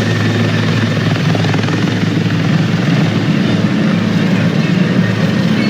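Helicopter running steadily, a loud, fast chopping drone of rotor and engine that goes on without change.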